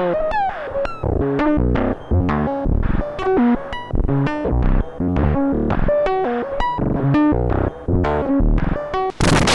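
Mannequins Just Friends (v4) Eurorack oscillator module playing a quick sequence of short, plucky synthesizer notes that jump between pitches, with a falling pitch glide just after the start. Near the end the sound changes to rhythmic bursts of noise.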